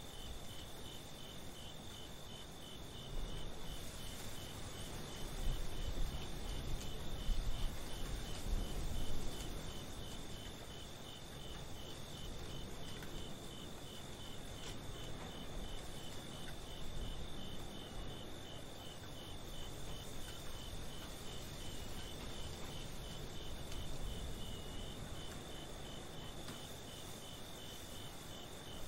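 Crickets chirping in a steady, even rhythm, with a low rumble underneath that swells and fades, strongest from about three to ten seconds in.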